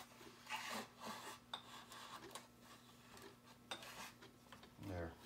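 Cloth shop towel rubbing and rustling against a two-stroke engine's crankcase and cylinder as it is wrapped around them, with scattered light scrapes and clinks of metal parts being handled.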